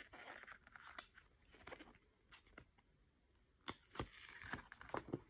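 Faint rustling of paper and a few light ticks as a sticker book is handled and opened, the ticks coming more often in the second half.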